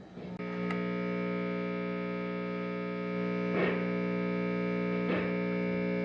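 Electric guitar amplifier putting out a steady distorted buzz that starts about half a second in, picked up as the exposed contacts of the disassembled selector switch are handled with the amp still on. Two faint crackles come in the middle and near the end.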